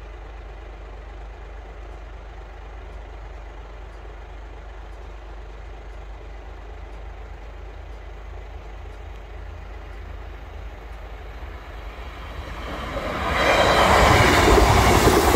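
Low steady rumble of road vehicles idling at the crossing barriers. From about twelve seconds in, an East Midlands Railway Class 158 diesel multiple unit approaches and passes close by, loud.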